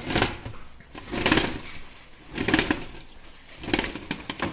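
Creaking and scraping of a window and its aluminium roller shutter being pushed back and forth by hand, in five strokes a little over a second apart.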